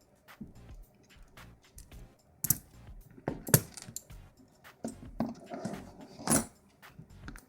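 Small metal clicks and scrapes from a pin-tumbler lock cylinder and key being handled while its retaining clip is worked off. The sharpest clicks come about two and a half, three and a half and six and a half seconds in.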